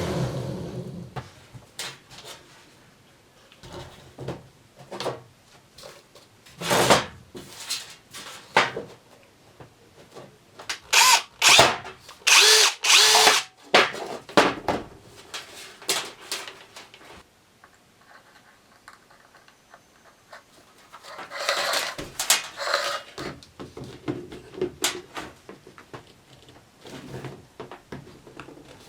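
A homemade 12 V vacuum cleaner's screwdriver motor switches off and runs down. Then come intermittent workshop noises: clicks, handling knocks and short bursts of harsh tool noise, loudest about eleven to fourteen seconds in and again about twenty-two seconds in.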